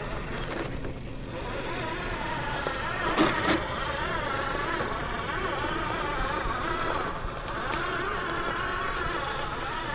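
Electric motor and gear drive of an RC4WD Ford Raptor 1/10 scale RC truck whining as it crawls over loose gravel, the pitch wavering with the throttle, over the crunch of tyres on stones. Two sharp knocks about three seconds in.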